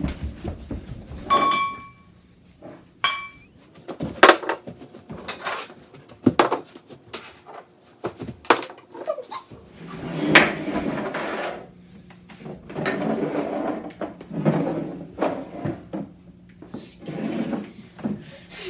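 Dishes, cups and glasses struck one after another as an improvised xylophone: irregular clinks and taps, a few leaving a short ringing tone. Several longer clattering stretches come in the second half.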